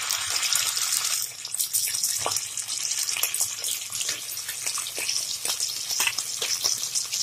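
Wet onion paste frying in hot ghee and oil in a kadai: a steady sizzle with many small crackles and pops.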